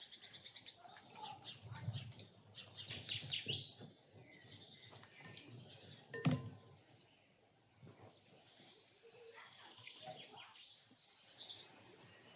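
Small songbirds chirping and trilling, with one sharp metallic clink about six seconds in, as metal skewers are handled over a metal tray.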